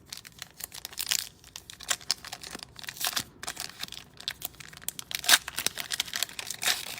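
Plastic trading-card pack wrapper crinkling and tearing as it is opened and cards are handled: a run of irregular sharp crackles, loudest about five seconds in.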